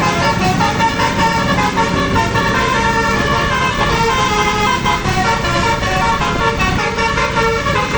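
Bus telolet horn, a set of multi-tone air horns, playing a quick melody of changing notes over the bus's running engine.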